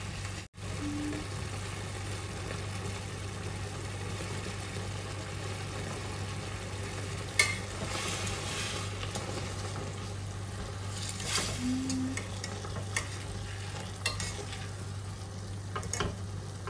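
Swordfish steaks sizzling in olive oil in a stainless steel frying pan, over a low steady hum. About seven seconds in, and again around eleven to twelve seconds, metal utensils clink and scrape against the pan as the steaks are turned over.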